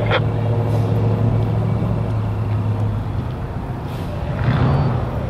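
Diesel engine idling with a steady low hum, with a sharp clank right at the start. About three seconds in the hum changes, and a short rushing sound swells and fades about four seconds in.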